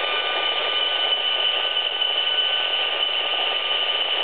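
Gigahertz Solutions HF-Analyser RF meter's loudspeaker playing its audio output of the microwave signals it picks up from 2G and 3G cell antenna panels, with the meter reading over range. The sound is a steady loud hissing buzz with a few high, steady whistling tones over it.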